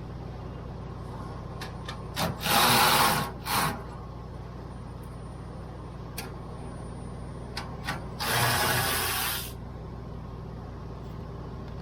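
Ratchet wrench working the 7/16 bolts on an APU belt tensioner: two spells of fast ratcheting, each about a second and a half long, with a few lighter tool clicks in between.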